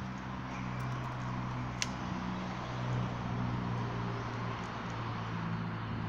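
Steady background rumble of road traffic from a nearby main road, with a low hum running under it and one faint sharp click about two seconds in.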